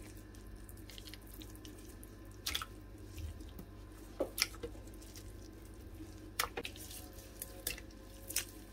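Pieces of pressed tofu, torn by hand, dropping into a plastic blender jar of seasoned water: scattered soft plops and ticks over a low steady hum.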